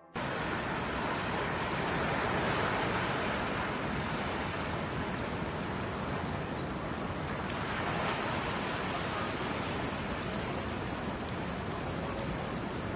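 Ocean surf washing in over flat rocks and sand, a steady rush of water that starts abruptly and swells twice, about two and a half and eight seconds in.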